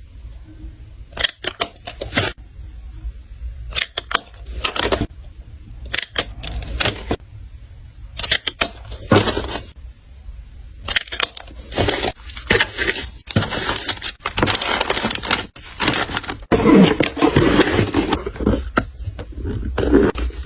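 Handling of an order's packaging: irregular clicks, taps and short rustles, becoming denser, continuous crinkling and rustling about halfway through.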